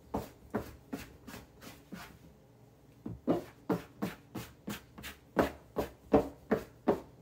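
Dough scraper working a sticky sourdough on a floured wooden board, making short scraping strokes about three a second as the dough is pushed and turned. The strokes pause for about a second in the middle, then resume.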